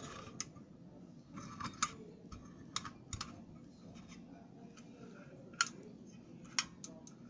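Metal support arms and feet of a portable gas camping stove being folded shut by hand: a series of sharp, irregularly spaced metal clicks.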